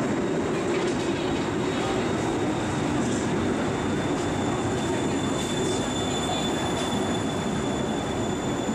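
SKM Warszawa electric multiple unit running along the platform of an underground station: a steady rumble of wheels and motors with a thin, steady high-pitched whine over it.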